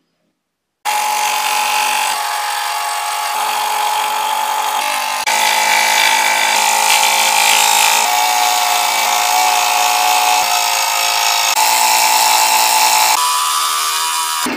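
Electric scroll saw running and cutting thin plywood, a steady motor hum under a buzzy cutting noise. It starts about a second in, and its pitch and level jump abruptly several times.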